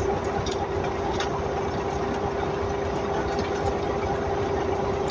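Heavy machinery engine running steadily at an even idle-like speed, with a constant hum and a few faint clicks.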